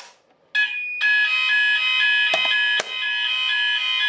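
GENT Vigilon fire alarm going off after a manual call point is operated with a click. About half a second in, a loud alarm starts: steady high tones with an alternating two-pitch warble underneath, several switches a second. A couple of sharp clicks come part-way through.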